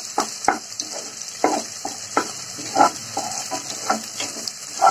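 A spatula stirring and scraping scrambled egg masala frying in oil in a non-stick pot, with a short scrape every half second to a second over a steady sizzle of hot oil.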